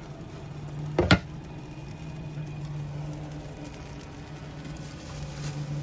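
A steady low hum with one sharp knock about a second in, a utensil against the frying pan while a pizzadilla cooks in it.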